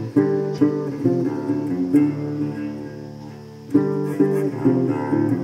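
Instrumental background music led by plucked guitar. It drops quieter a little over two seconds in and comes back up just before the four-second mark.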